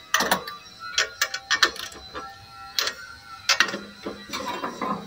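Ratchet wrench clicking in irregular bursts while snugging down 9/16 nuts on steel, with light metal clinks.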